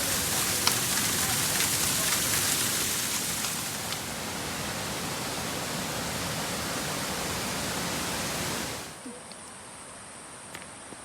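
Steady rushing of running water, like a stream or small waterfall. It cuts off sharply about nine seconds in, leaving a quieter background with a thin, steady, high insect buzz.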